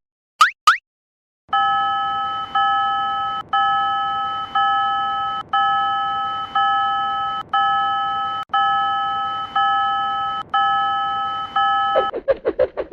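Electronic railroad crossing warning-bell sound effect: about ten evenly spaced dings, roughly one a second, each fading slightly before the next. Two quick rising chirps come just before it, and near the end it switches to a fast, lower-pitched pulsing.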